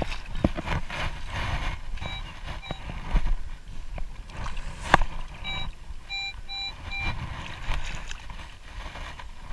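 Minelab CTX3030 metal detector giving short, identical electronic beeps, two about two seconds in and four more between five and seven seconds in. Under them is the sloshing of wading through shallow water, with one sharp knock about five seconds in.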